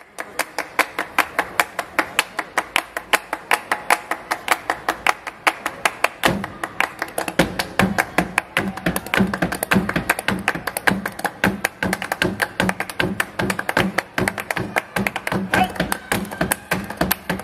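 Flamenco palmas: three people hand-clapping a fast, steady, interlocking rhythm. Deeper body-percussion hits join in about six seconds in.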